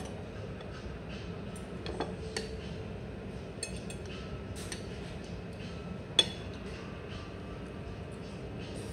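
Metal knife and fork scraping and clinking against a ceramic plate while cutting food, a few short clinks with one much louder clink about six seconds in, over steady room noise.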